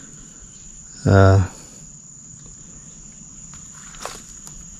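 Insects, crickets, singing one steady high-pitched trill. A man's voice sounds briefly about a second in, and there is a faint click near the end.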